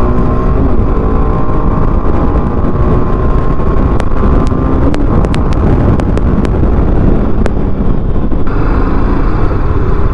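TVS Apache RR310's 312 cc single-cylinder engine on the move, its pitch falling over the first couple of seconds as the revs drop off, under heavy wind and road rumble. A string of sharp clicks comes in the middle.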